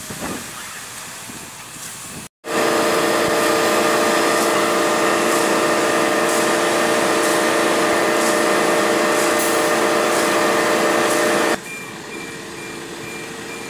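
Concrete mixer truck's diesel engine running loud and steady at high speed to turn the drum as it discharges concrete down the chute, starting abruptly about two seconds in after a brief dropout and stopping sharply near the end. After that the engine hums more quietly under a high, rapidly repeating electronic beep.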